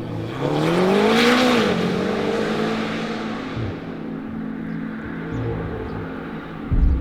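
McLaren GT's twin-turbo V8 rising in pitch and then falling away as the car passes, with a rush of tyre and wind noise about a second in. A low thump comes near the end.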